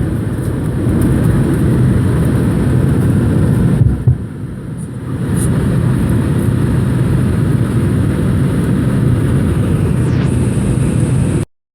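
Steady low rumble of a running engine with road or wind noise. It dips briefly about four seconds in, comes back, and cuts off suddenly near the end.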